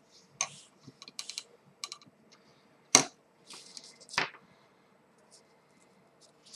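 Small scattered clicks and taps from handling a soldering iron and solder wire against a circuit board, with one sharp click about three seconds in and another a second later, over a faint steady hum.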